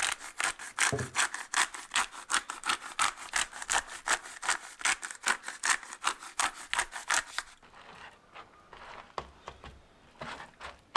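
Hand-twisted spice mill grinding: a fast, even run of gritty strokes, about five a second, that stops after about seven and a half seconds. Fainter, irregular scraping and tapping follow.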